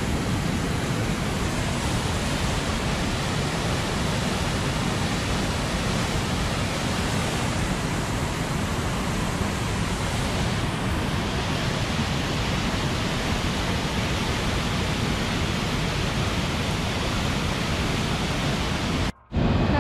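Steady rushing of a waterfall and its whitewater, an even roar with no breaks. It cuts out for a moment near the end.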